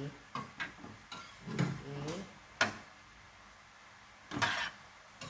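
Metal ladle clinking and knocking against a stainless steel cooking pot during stirring: a few sharp clicks, the loudest about two and a half seconds in, with a short scrape near the end.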